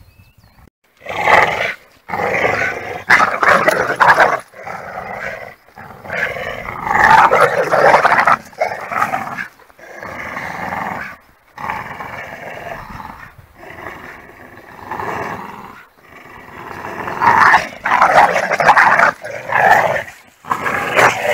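Pit bull terriers growling as they tug against each other over a rope toy in play, in loud repeated bouts broken by short pauses, starting about a second in.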